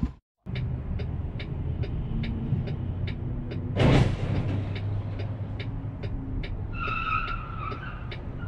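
Engine running low and steady inside a truck cab, with a steady ticking about two and a half times a second and a short loud burst of noise about four seconds in. Near the end another car's tires squeal for about a second as it skids sideways across the road.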